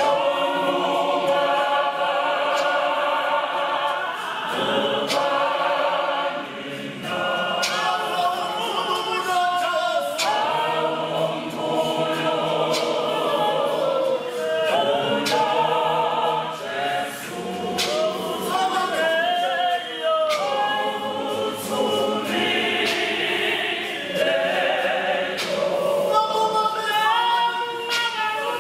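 Mixed choir of men and women singing a cappella, with a sharp percussive beat every second or two.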